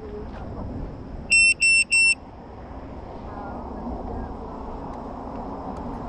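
Three short, high electronic beeps in quick succession a little over a second in, over a steady background hiss.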